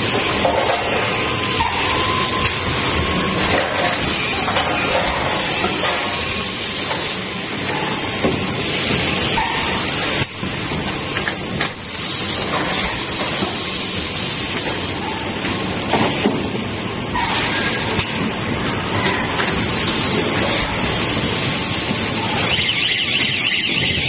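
Automatic PET stretch blow moulding machine running: a steady hiss of compressed air over mechanical noise, with a few sharp clicks.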